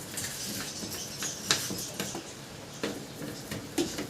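A few sharp light clicks and taps, like small metal parts and tools being handled during repair work on a gas stove burner, over a faint steady hiss.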